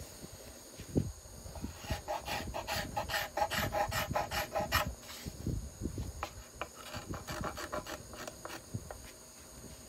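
Steel card scraper drawn over the wooden arch of a violin plate in short, quick strokes, about four a second, in two runs with a brief pause between them. This is the final smoothing of the arching.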